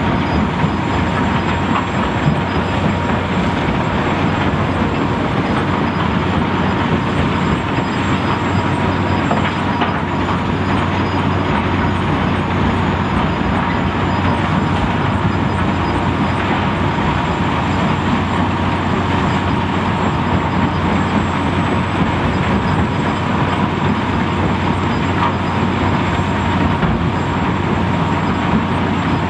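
Heavy quarry machinery running steadily: a Lokotrack LT125 mobile jaw crusher crushing rock and a CAT 374FL hydraulic excavator working beside it, heard as one constant loud drone with a steady whine in it.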